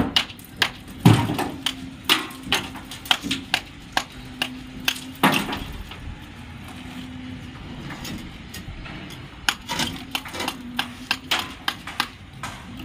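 Irregular sharp knocks and taps, about two a second, with a quieter stretch in the middle and a faint steady hum underneath.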